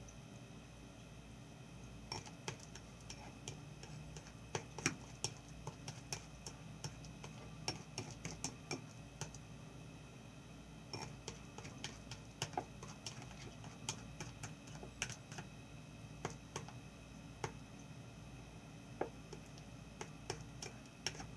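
Irregular light clicks and taps from mixing the thick shampoo-and-salt slime in a small container, several a second in uneven runs with a brief pause about halfway.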